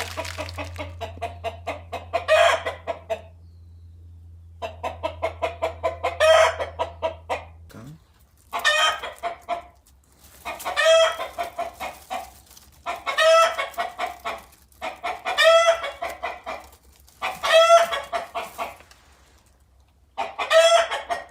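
Chickens cackling: repeated calls, each a quick run of clucks building to a loud squawk, about every two seconds. The owner takes it for the rooster calling beside a hen preparing to lay her egg. A low steady hum stops about eight seconds in.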